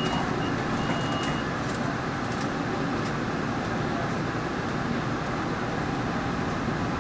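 Steady running noise of an MBTA Green Line light-rail train, heard from inside the car in the subway tunnel. Two short high beeps, the door-closing warning, sound in the first second and a half, with faint high clicks from the wheels and track.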